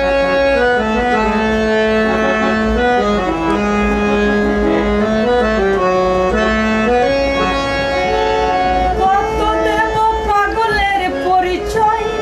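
Harmonium playing the song's melody in held, stepping notes over a drone, an instrumental interlude between the singer's verses of a Baul song. A voice comes in wavering over it after about nine seconds, with the low rumble of the moving train underneath.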